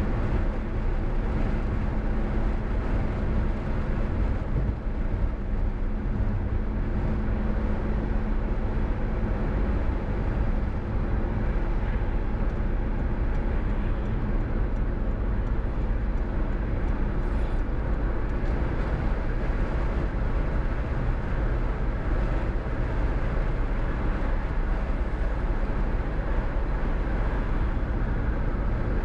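A car driving along a highway: steady engine and tyre noise, with a faint steady hum over the first ten seconds or so.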